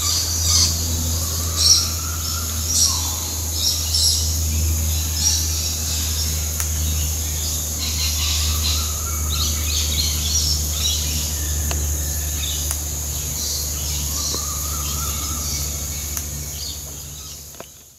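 Birds chirping in short, repeated calls over a steady high insect drone and a steady low hum; it all fades out near the end.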